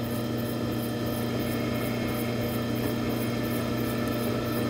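Drill press motor running with a steady hum, turning the auger bit of a Delta hollow-chisel mortising attachment as it cuts a mortise in yellow pine.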